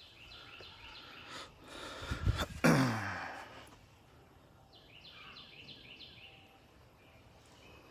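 Birds chirping in runs of quick downward notes, with a couple of thumps and then a loud breathy sigh with a falling pitch about two and a half seconds in.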